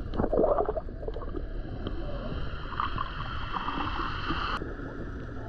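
Underwater sound picked up by a submerged action camera: a muffled low rumble with gurgling bubble noises in the first second. Steady high whining tones run over it and cut off sharply about four and a half seconds in.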